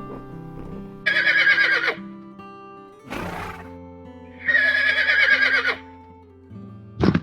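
A horse whinnying twice, each call about a second long with a quavering, wavering pitch, with a short breathy burst of noise between the two calls. Background music plays underneath.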